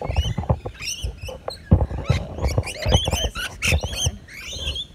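Flock of rainbow lorikeets chattering as they feed, a dense run of quick high screeches and squeaks, mixed with frequent short low knocks.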